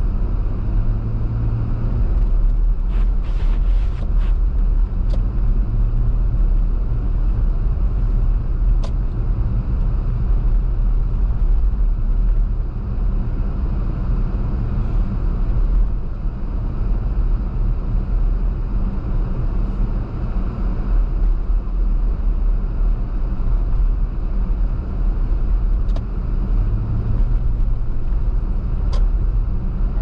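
A car driving, a steady low rumble of engine and road noise, with a few brief faint clicks.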